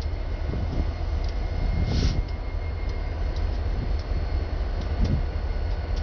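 Diesel-electric freight locomotives rolling slowly past, a steady low rumble with a faint whine over it. A few sharp clicks and squeaks from the wheels and running gear come through, most clearly about two and five seconds in.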